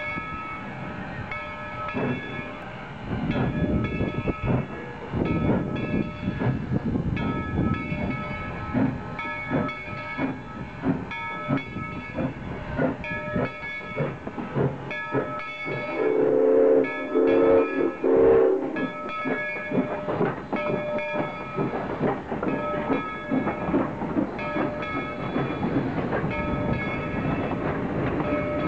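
Steam locomotive No. 97, a 2-8-0, moving slowly past with chuffing exhaust and hissing steam while its bell rings steadily. About sixteen seconds in, the chime whistle sounds in short blasts for about two and a half seconds; this is the loudest moment.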